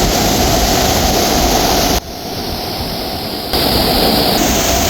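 Steady, loud rushing of a big waterfall, a dense roar of falling water. It turns abruptly quieter about two seconds in and comes back just as abruptly a second and a half later.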